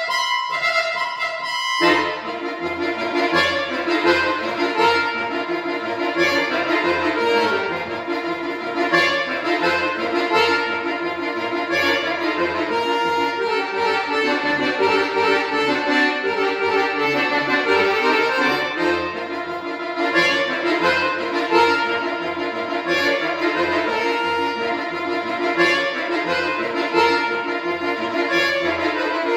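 Piano accordion played solo. A held chord sounds first, then about two seconds in a fast run of short notes begins over an evenly pulsing bass.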